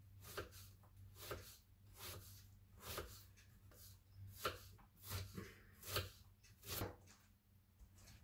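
Kitchen knife chopping an onion on a plastic cutting board: faint, uneven knife strikes about one a second, stopping about seven seconds in.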